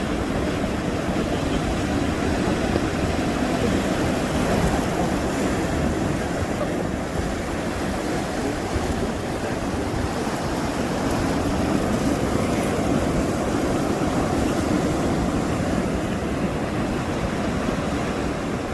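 Sea waves and wind, a steady unbroken rush with wind buffeting the microphone.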